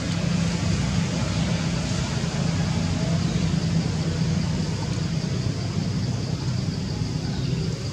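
Steady low engine hum of a motor vehicle running, with an even background hiss and a faint constant high-pitched drone.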